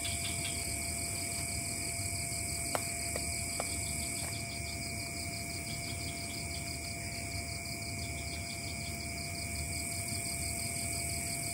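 Night chorus of forest insects: several steady high-pitched buzzing tones, one with a fast pulsing trill, and a steady lower whine. A few small clicks about three seconds in.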